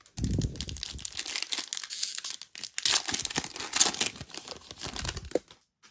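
A foil trading-card pack wrapper crinkling and being torn open by hand, a dense crackling that starts about a quarter second in and stops just before the end.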